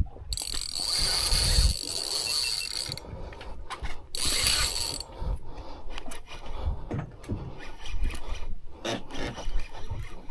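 Spinning reel's drag screaming as a hooked fish pulls line off: one long high buzzing run of about three seconds, then a shorter one about four seconds in. Between and after the runs the reel gives irregular clicks as it is worked.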